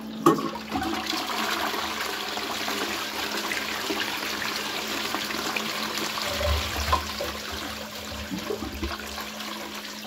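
A 2002 Qualitas Versailles close-coupled toilet flushing through its Fluidmaster Pro dual-flush syphon. A sharp clack of the lever about a quarter second in, then rushing water swirling through the pan, with a deeper rumble around six to seven seconds in, easing off near the end.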